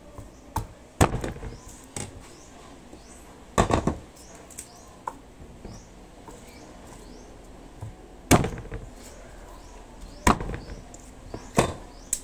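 Knife knocking on a cutting board during kitchen prep of garlic and pork: about half a dozen separate sharp knocks at irregular intervals, a few seconds apart.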